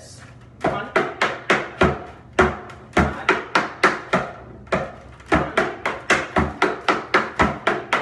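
Tap shoes with metal taps striking a plywood tap board: a quick rhythmic run of sharp taps dancing the break of a time step, with a brief pause about halfway before the taps pick up again.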